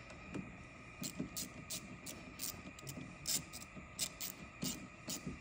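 Light, irregular clicks and ticks, two to three a second, as tools and parts are handled in a pickup truck's engine bay, over a faint steady high hum.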